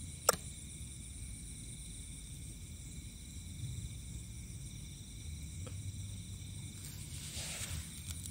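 Steady chorus of night insects, crickets among them, trilling in several high layers, with one sharp click shortly after the start and a brief rustle with small clicks near the end.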